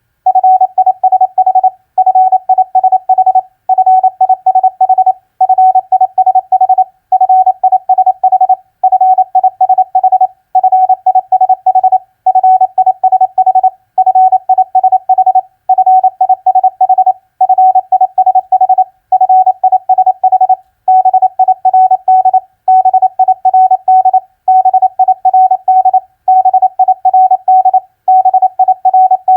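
Morse code (CW) sidetone at one steady pitch, keyed in quick dots and dashes at 28 words per minute. It spells common four-letter words, with a short pause between words about every second and a half to two seconds.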